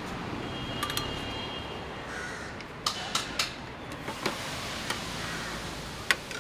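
Crows cawing over steady street background noise, with sharp clinks of a steel ladle against steel cooking pots, several in the second half.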